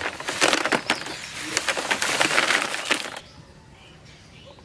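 Brittle dried fish crackling and crunching as they are handled on a woven bamboo tray, a dense run of dry clicks that stops suddenly about three seconds in.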